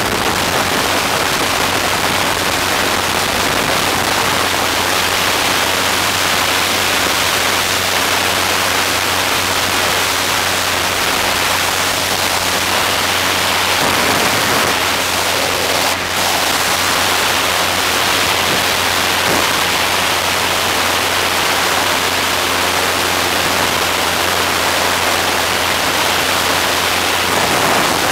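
Steady rush of wind over the microphone in flight, with a steady engine drone underneath.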